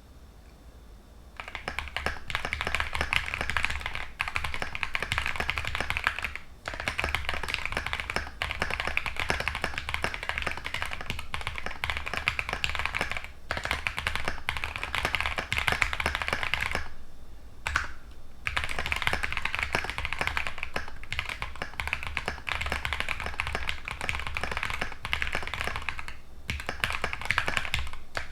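Typing on a MAKER Scarlet mechanical keyboard, gummy O-ring mounted, fitted with lubed MM switches (LY stem, nylon top, UHMWPE bottom). Fast continuous key clacking starts about a second and a half in and runs with a few brief pauses.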